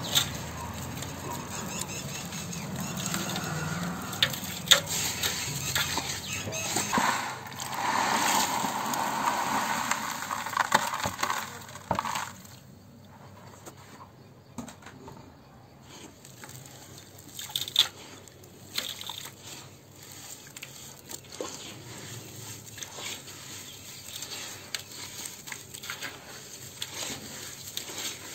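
Dry sand and dirt crumbled by hand and dropped into a basin of water, splashing with many sharp gritty clicks and crunches, louder for the first twelve seconds. After that it is quieter, with scattered clicks, as wet sand is squeezed in the water.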